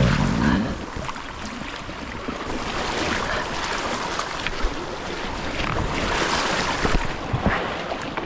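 Creek water splashing and rushing around a small boat, with scattered short knocks.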